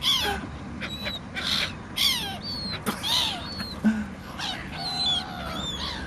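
Seagulls calling agitatedly, a run of short calls about two a second, many sliding down in pitch, with more than one bird overlapping.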